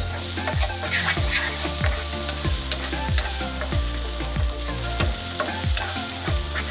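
Diced red onion sizzling in hot oil in a nonstick frying pan, stirred and scraped around the pan with a wooden spatula.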